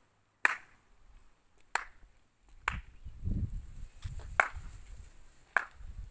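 Five sharp clicks, a second or so apart, over a low rumbling that sets in about halfway through.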